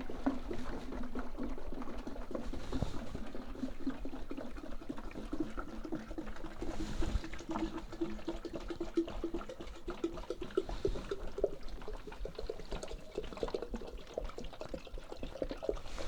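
Washer fluid gravity-draining from an upturned jug through a syringe fitting into a tractor tire, trickling and gurgling, with a faint steady tone that creeps up in pitch over the first ten seconds.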